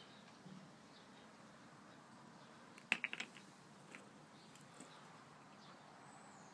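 A quick cluster of sharp clicks about three seconds in, a plastic bottle lid clattering on wooden decking, with a few lighter ticks elsewhere. Faint bird chirps in the background.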